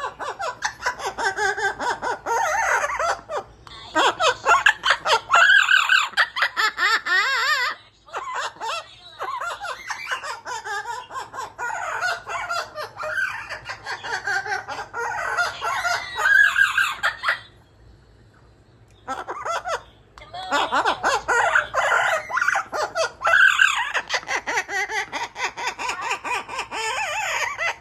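Amazon parrot cackling and squawking excitedly in rapid, laugh-like bursts, with a pause of about two seconds roughly two-thirds of the way through.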